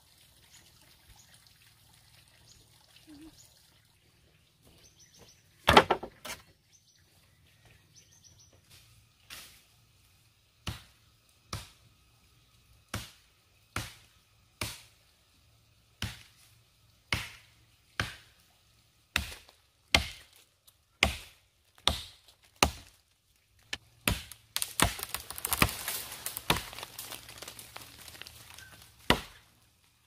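Repeated sharp chopping blows, about one a second, after a single heavy blow near six seconds. In the last few seconds the blows come with a loud rustling, crackling noise.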